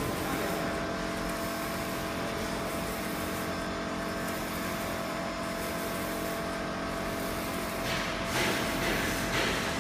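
UV flatbed printer running during a print on ceramic tile: a steady mechanical hum with a constant whine from its carriage drive and cooling fans, with a couple of brief louder hissing swells near the end.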